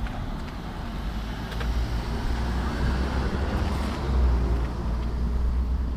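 A car passing on the street, its road noise swelling through the middle and fading, over a steady low rumble.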